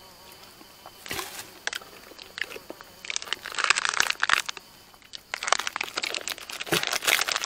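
Crinkling and rustling of a wrapping being handled and opened by hand, in bouts: briefly about a second in, then longer from about three seconds in and again from about five seconds in.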